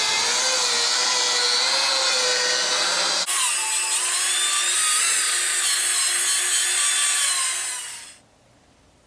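Electric rotary buffer spinning a compound-loaded pad against a plastic headlight lens while cutting away oxidation: a steady motor whine over a rubbing hiss. The whine jumps to a different pitch and tone about three seconds in, then the sound fades out about a second before the end.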